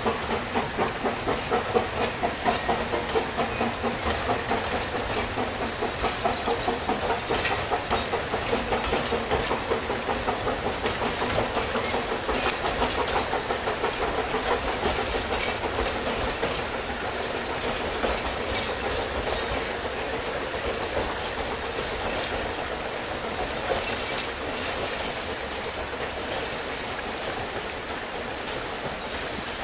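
Talyllyn Railway narrow-gauge steam train passing with a rhythmic clatter from its wheels, growing fainter as it pulls away. A steady rush of stream water is left underneath.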